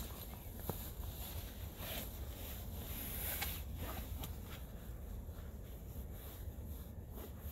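Gore-Tex military bivy sack fabric rustling and crinkling in short bursts as it is pulled closed over a person lying inside, with a few faint clicks, over a steady low rumble.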